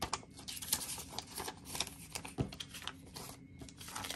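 US paper bills ($20s and $10s) rustling and crinkling as they are handled and counted by hand: many quick, crisp, irregular rustles and flicks.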